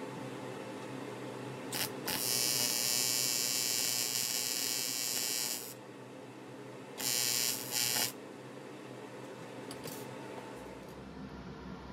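AC TIG welding arc on aluminium buzzing as the boss is welded to the boost pipe: a brief strike about two seconds in, a longer arc of about three and a half seconds, then two short arcs back to back near the eight-second mark, over a steady shop hum.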